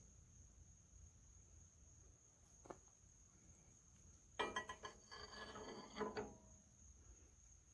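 Steel tools clinking and rattling against the flywheel hub for about two seconds, starting a little past halfway, as a shop-built gib key puller is set against a stuck gib key; one light click comes before it. A steady high insect trill runs underneath.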